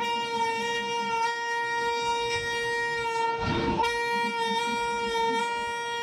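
Train horn sounding in one long, steady blast of a single pitch as the special train pulls out of the station, with a short rush of noise about halfway through.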